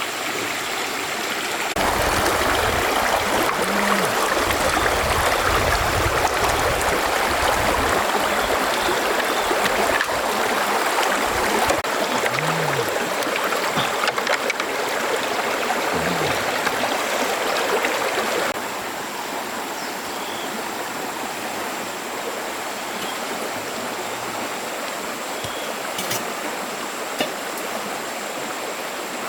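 Stream water running steadily, louder from about two seconds in and softer again after about eighteen seconds, with a faint high steady whine behind it.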